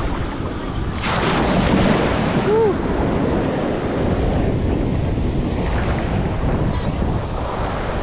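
Ocean surf washing around a camera held just above the water in the shallows, with a louder surge of breaking water starting about a second in. Wind buffets the microphone.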